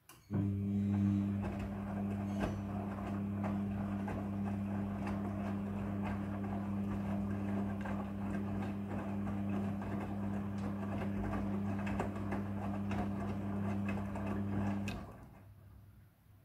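Midea front-loading washing machine running: a steady electric hum with rushing water over it, starting suddenly and cutting off near the end.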